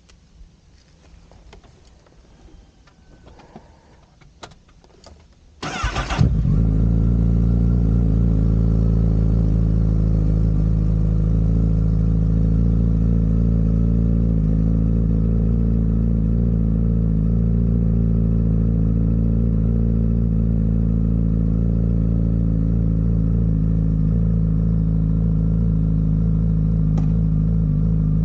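A few faint clicks and taps, then about six seconds in a Honda CBR1000RR's starter cranks briefly and its inline-four engine, fitted with a Yoshimura exhaust, fires and settles into a steady idle.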